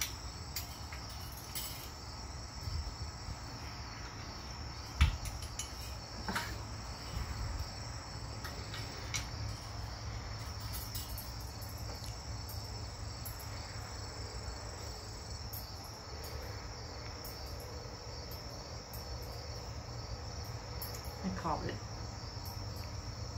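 Crickets chirping steadily, with a few sharp clicks and clinks of hand tools as the carburetor's mounting bolts are worked loose, the loudest about five seconds in.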